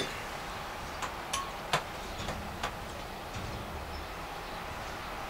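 A few light clicks and taps from a plastic oil bottle being handled as fresh oil is poured into a 139QMB scooter engine's crankcase. Under them is a steady low background noise.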